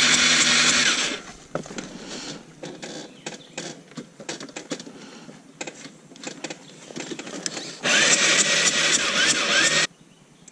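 Yamaha Raptor 660 ATV's electric starter cranking the single-cylinder engine twice, each try about two seconds long, one at the start and one near the end; the engine spins over but never fires, which the rider takes for a snapped timing chain. Light rattles and clicks between the two tries.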